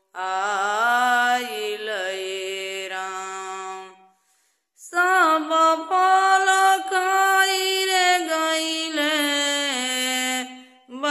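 A woman singing a Bhojpuri devotional bhajan unaccompanied, in long held, gliding phrases, breaking off briefly about four seconds in before the next line.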